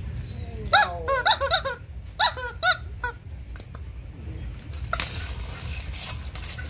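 Rottweiler puppy's rubber chicken squeak toy squeaking in quick runs of short, falling squeals, several in the first second or two and a few more around two to three seconds in. A brief rush of noise follows about five seconds in.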